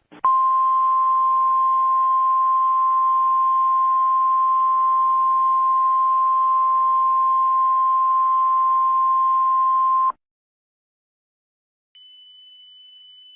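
Emergency alert warning tone: a single steady high-pitched tone, like the weather-radio alarm tone, held for about ten seconds over radio-like hiss, then cutting off suddenly. Near the end a faint, higher steady whine begins.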